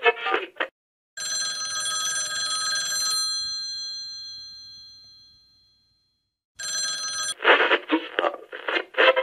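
A telephone bell rings once about a second in and dies away over a few seconds. A second ring near the end is cut short after half a second. Both are followed by a thin, telephone-like voice.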